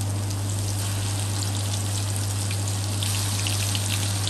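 Onion and freshly added ginger-garlic paste sizzling in hot oil in a stainless steel wok: a steady hiss with fine crackles that grows louder about three seconds in, over a steady low hum.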